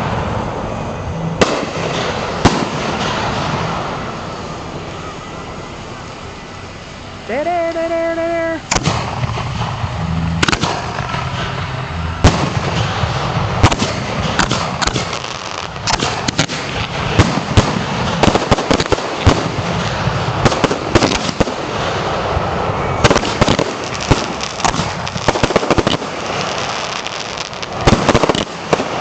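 Fireworks going off in quick succession: sharp bangs, pops and crackles from aerial shells and cakes, with launch thumps between the bursts.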